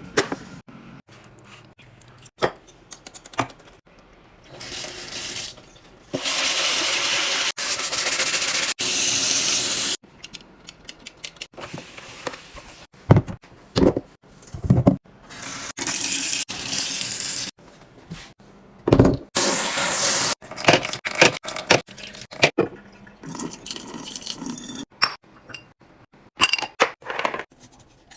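Liquid running or being poured in two stretches of a few seconds each, with plastic and glass containers clicking, clacking and being set down between them as a fridge is stocked.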